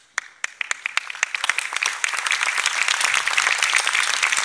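Audience applause: a few scattered claps that quickly thicken into steady, dense clapping from the hall about two seconds in.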